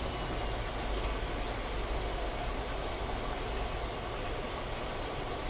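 Bosch front-loading washing machine filling with water for a rinse: a steady rush of water running into the drum, with a low rumble underneath.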